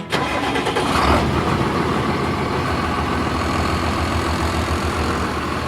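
A vehicle engine sound that starts abruptly, surges briefly about a second in, then runs steadily with a low, pulsing rumble.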